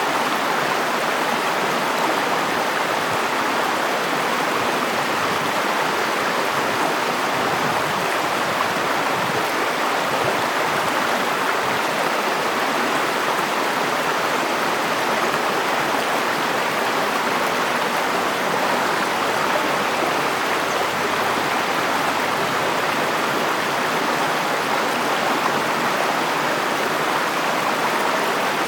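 River water flowing, a steady even rush of moving water that does not change.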